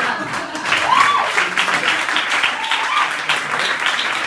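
Audience applauding, a dense patter of many hands clapping, with a couple of short calls from the crowd about one and three seconds in.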